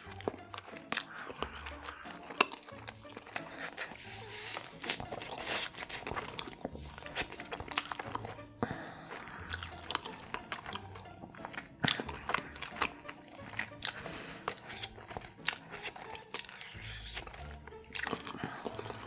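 Close-miked eating: crunchy bites and chewing with many sharp clicks throughout, over background music with a low bass line.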